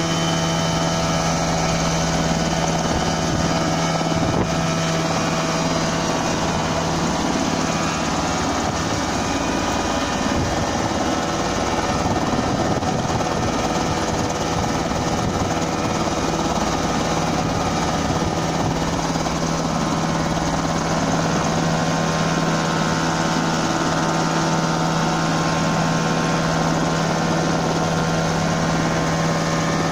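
Homemade single-seat coaxial helicopter hovering just above the ground, its engine and two counter-rotating rotors running steadily at an even level with a strong steady hum.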